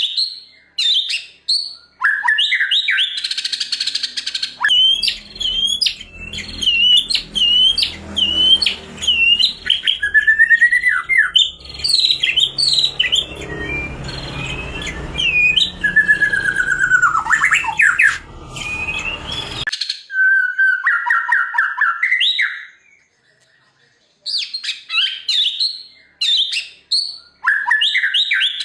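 White-rumped shama (murai batu) singing a loud, varied song of whistled phrases and rapid runs of repeated notes, with a short pause about three-quarters of the way through. A low background rumble sits under the song through the middle and cuts off suddenly.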